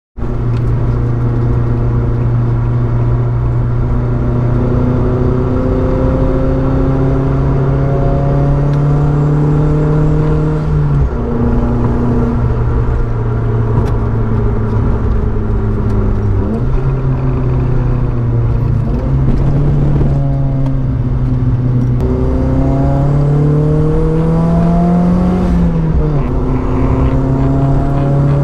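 Nissan Silvia S15's turbocharged SR20DET four-cylinder engine and exhaust under way, the engine note climbing steadily in pitch as it accelerates through each gear and dropping sharply at several gear changes.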